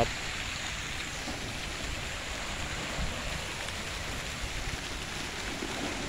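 Steady rush and splash of water: a small waterfall pouring over shore rocks into the sea, with small waves washing around the rocks.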